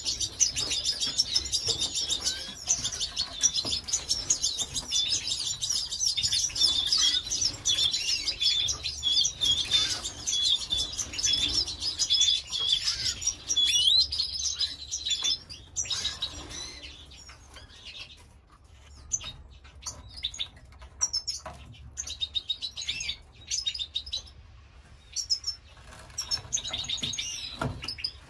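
Canaries chirping: a dense, continuous chatter of high chirps for about fifteen seconds, then thinning to scattered chirps and short rustles.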